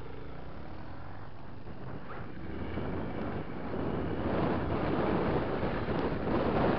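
Enduro motorcycle's engine running, heard from a camera on the moving bike. About three seconds in, wind noise on the microphone grows louder and drowns the engine.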